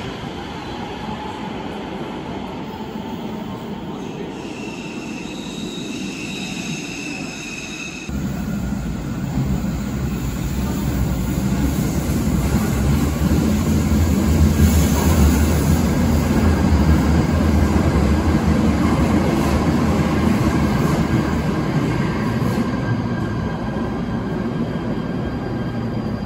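Cologne light rail train entering an underground station: a low rumble comes in suddenly about a third of the way through, swells and holds as the cars roll along the platform. Before it, a quieter stretch of station noise with a high thin whine lasting a few seconds.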